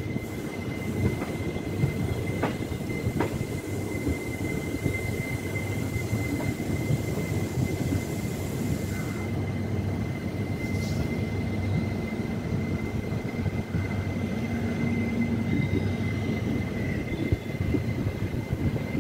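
Passenger train rolling into a station: a steady rumble of coach wheels on the rails, with a thin steady high whine above it and a couple of light clicks near the start.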